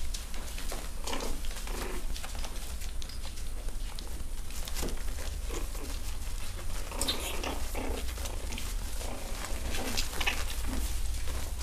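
Pekingese puppies play-fighting, giving short little vocal noises in scattered clusters, mixed with small scratching and scuffling sounds of paws on the pen floor.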